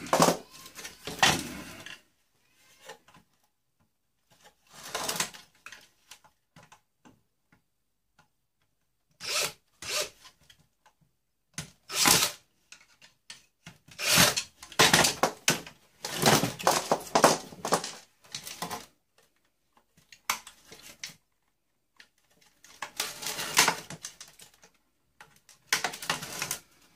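Hands dismantling a boombox for scrap: irregular bursts of ripping, rubbing and clicking as wires, plastic and small metal parts are pulled apart, with quiet gaps between.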